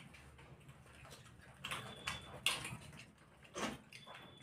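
Faint eating sounds of people eating rice and fish curry with their hands: chewing and mouth noises, with a few short sharp sounds.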